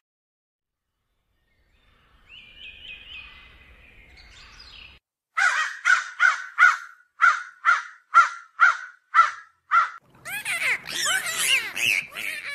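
Birds calling: after a short silence, faint chirping, then a run of about a dozen short, evenly spaced calls, then many birds chattering at once near the end.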